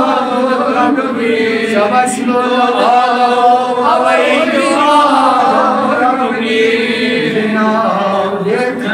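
Elderly man chanting a Kashmiri naat in praise of the Prophet, his voice rising and falling through long drawn-out notes.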